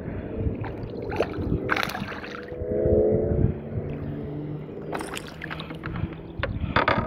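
Water sloshing and several sharp knocks as a small northern pike is pulled alongside a kayak and lifted aboard.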